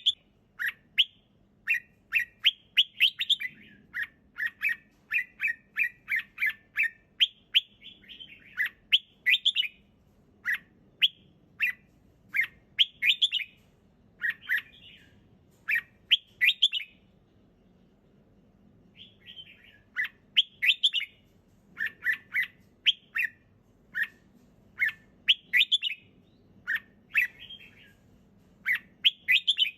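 Red-whiskered bulbul singing: a run of short, clear chirping phrases, with a pause of about two seconds a little past the middle.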